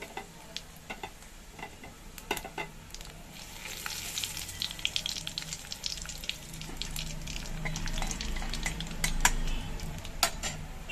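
Whole cumin, fennel, fenugreek and nigella seeds frying in hot mustard oil in a kadhai: a few sharp pops at first, then dense sizzling and crackling from about four seconds in. This is the tempering (tadka) stage, the seeds spluttering as they crackle.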